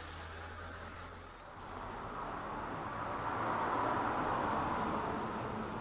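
A vehicle passing by: an even rushing noise that swells to a peak about four seconds in and then fades.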